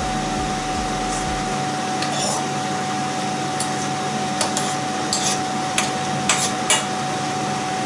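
A steady mechanical hum with one constant whining tone, a running kitchen appliance such as an extractor fan. A few light clicks and knocks of kitchen utensils come in the second half.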